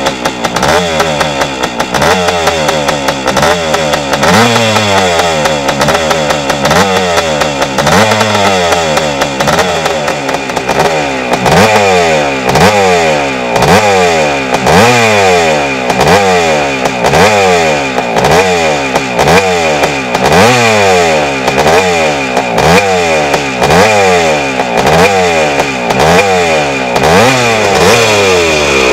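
Honda CR250M Elsinore's 250 cc two-stroke single-cylinder engine running, its throttle blipped again and again so the revs jump up and fall back about once a second.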